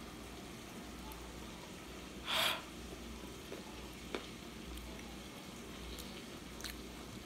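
Faint steady sizzle of broccoli cooking in olive oil in a pot, with a short rush of breath about two and a half seconds in and a light click about four seconds in.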